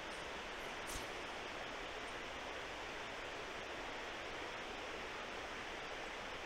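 Steady rushing of flowing river water, with a faint click about a second in.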